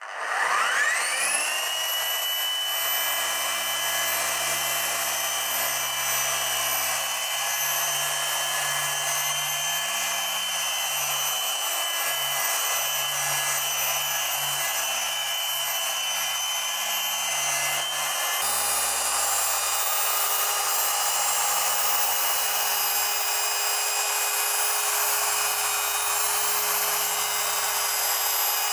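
Dual-action polisher with a foam pad switching on, its whine rising over about the first second as the motor spins up, then running steadily while it works polish into car paint. About two-thirds of the way through, the tone changes abruptly and the polisher keeps running.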